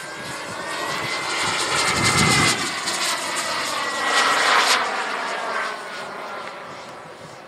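Gas turbine of a radio-controlled model Tornado jet on a flyby: a high whine with a rushing hiss that swells to its loudest in the middle and then fades as the jet flies away. The whine's pitch rises a little, then falls.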